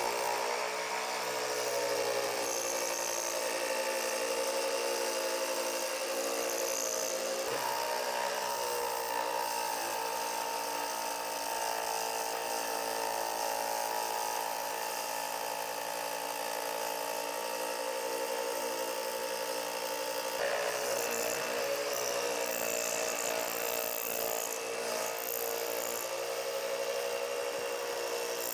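Bench-mounted jigsaw, its blade sticking up through the table, running and cutting through a wooden board in a steady whine. Its pitch shifts about a quarter of the way in and again about two-thirds through as the cut goes on.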